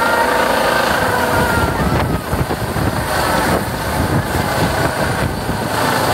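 Eurocopter EC135 air ambulance helicopter taking off and climbing away close overhead. The turbines give a high steady whine, strongest in the first couple of seconds, over rotor noise and rotor downwash buffeting the microphone.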